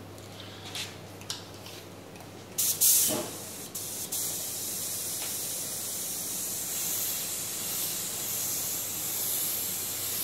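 Compressed-air spray gun spraying activator onto hydrographic print film floating on water, which softens the film's ink ready for dipping. A short, loud blast comes about two and a half seconds in, then from about four seconds on a steady high hiss.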